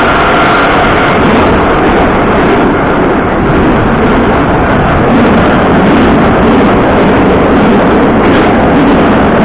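Moscow Metro 81-717.5 "Nomernoy" subway car running at speed through a tunnel, heard from inside the car: a loud, steady rumble of wheels and running gear. A faint high whine fades out in the first second.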